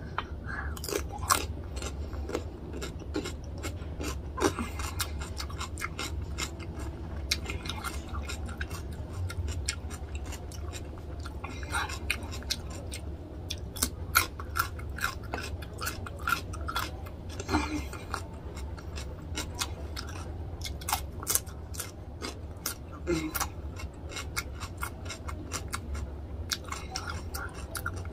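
Close-miked chewing and crunching of raw cucumber slices, with many quick sharp wet mouth clicks. A steady low hum runs underneath.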